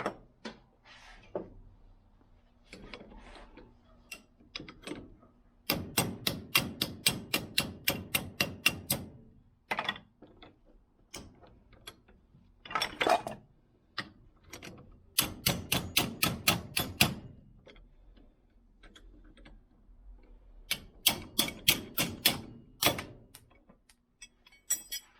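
A crescent wrench used as a hammer, rapidly tapping metal on metal on a rusty pair of pliers, in four bursts of about six strikes a second with pauses between.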